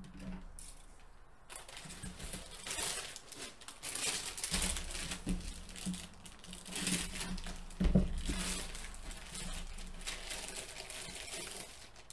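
Clear plastic bag crinkling and rustling as a plastic model kit sprue is handled and pulled out of it, with a single sharper knock about eight seconds in.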